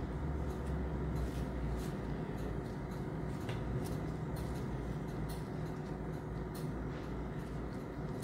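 A steady low hum of room noise, with faint soft ticks and rustles from gloved hands arranging lettuce and herbs on rice paper.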